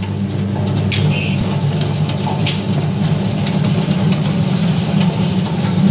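Stainless steel potato peeling machine running with a steady motor hum and a wash of water from a hose. Potatoes are poured into its steel hopper with a few sharp knocks.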